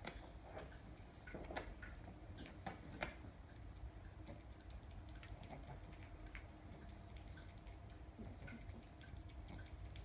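Faint, scattered light taps and clicks of kittens batting and pouncing at a ribbon wand toy on a wooden floor, busiest in the first few seconds, over a low steady room hum.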